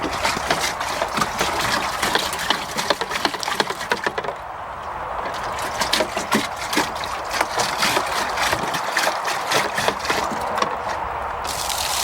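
Water splashing in a plastic dehumidifier bucket as it is rinsed out, with rapid knocks and rattles of the plastic.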